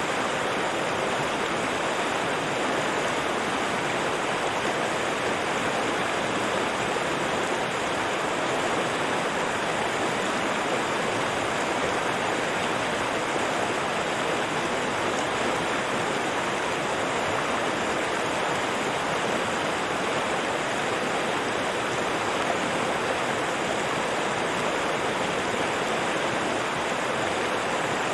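River water running in a steady, unbroken rush.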